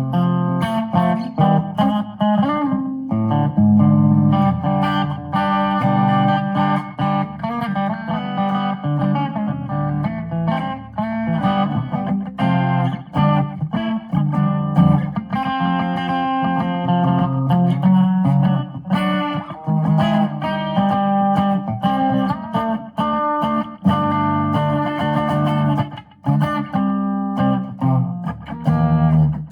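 Electric guitar played in a country twang style: a continuous run of picked notes with some bent notes, over low bass notes.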